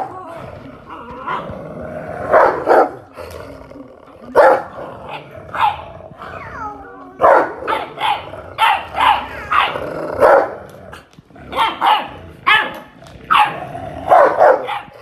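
Puppy barking and growling in rough play with a larger dog: a string of short barks, a second or less apart.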